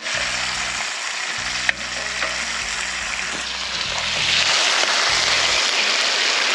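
Chicken pieces frying in hot oil in a disco (plow-disc pan), a steady sizzle that grows louder about four seconds in as the pieces are turned and lifted with a spatula. A single sharp tap comes a little under two seconds in.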